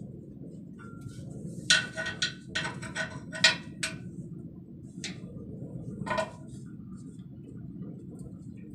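Sharp metallic clinks and taps of a hand tool against the metal air-line fittings of a trailer air-brake relay valve. About eight come in a quick cluster, then two single clinks follow, over a steady low hum.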